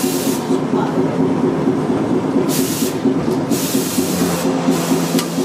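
Iyo Railway streetcar running along street track, heard from inside the cab: a steady hum and rumble from the motors and wheels. Several short bursts of hiss come and go over it, the longest during the second half.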